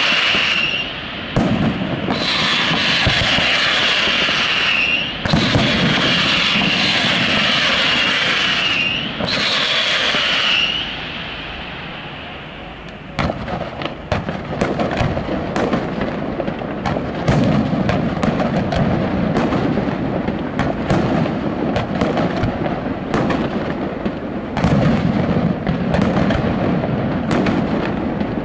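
Fireworks display. For the first ten seconds or so come four long hissing whistles, one after another, each with a steady high tone. From about thirteen seconds in, a string of sharp bangs and pops from bursting aerial shells sounds over a low rumble.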